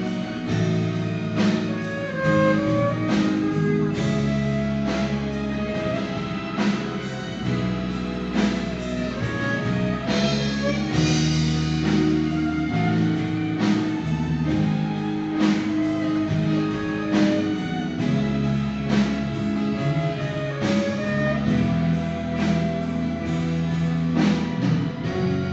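A live orchestra and band play a slow pop song, with a violin soloist and a steady bass line under it. Drum hits land about every second and a half.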